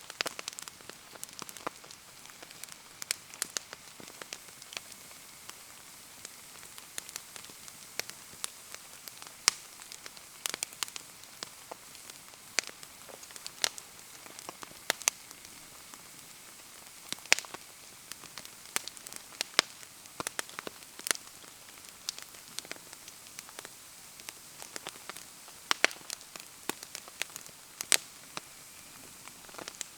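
Wood bonfire crackling and popping in the rain: irregular sharp pops and clicks, several a second at times, over a steady hiss of rainfall.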